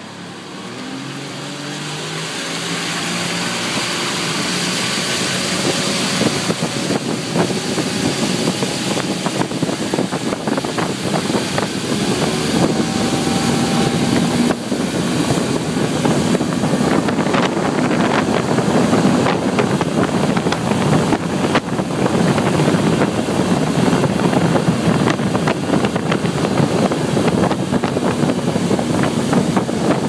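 Motorboat engine running, speeding up over the first several seconds and then holding steady, under a loud rushing noise of wind and water as the boat moves.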